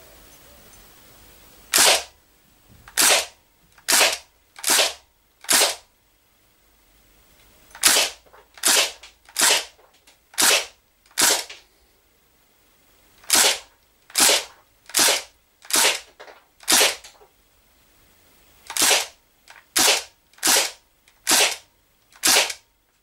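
Crosman DPMS SBR CO2-powered .177 BB rifle firing single shots, about one a second, in four strings of about five shots with short pauses between strings.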